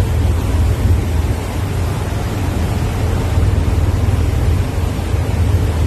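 Passenger ferry under way: the engines' steady low rumble under the rushing hiss of the churning wake.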